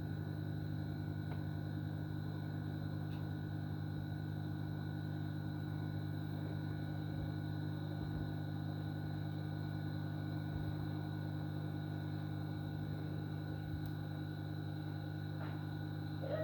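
Steady electrical hum with several thin whining tones held above it, and a few faint clicks.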